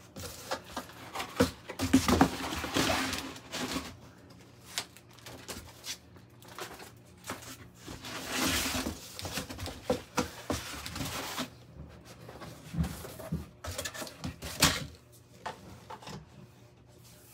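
Crinkling rustle of a plastic wrapping bag being worked off a bookshelf speaker, in two longer bursts, with small knocks and taps of handling in between.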